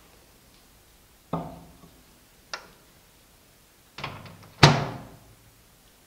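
A glass bowl set down in a microwave oven with a thunk about a second in, a small click, then a few light clicks. The microwave door is shut with a loud, sharp thunk about two-thirds of the way through.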